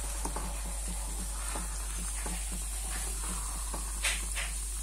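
Wooden spatula stirring thick sweet pongal in a steel pan on low heat, with soft sizzling and many small bubbling pops from the ghee-laden mixture. There is a brief sharper scrape about four seconds in.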